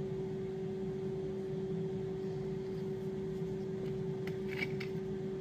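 Steady hum of a running kitchen appliance, with a few faint clicks about four seconds in as the plastic cap of a small bottle is twisted.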